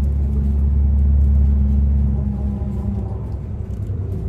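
A vehicle running with a steady low rumble that eases and turns rougher about two seconds in.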